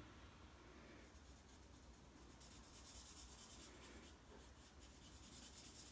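Faint scratching of a Stampin' Blends alcohol marker nib colouring in a stamped poinsettia petal on cardstock, barely above the room tone.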